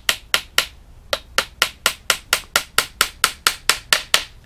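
Hammer tapping small nails into a wooden screen frame: a quick, even run of light strikes, about four a second, with a short pause about a second in.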